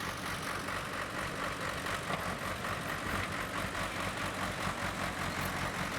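Bulldozer's diesel engine running steadily while it works the ground.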